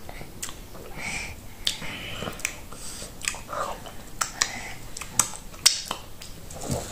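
Close-up mouth sounds of eating a mouthful of fufu with peanut butter soup: chewing, wet lip smacks and sucking as fingers are licked, with about seven sharp smacking clicks spread through.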